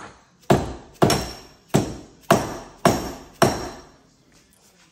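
Hammer striking metal: six sharp blows, a little under two a second, each with a short ringing decay.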